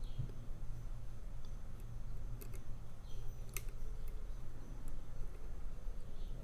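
A hook pick scraping and clicking faintly against the wafers inside a Chevy car door lock as it is single-pin picked: a handful of scattered small clicks, the sharpest a little past the middle. A steady low hum runs underneath.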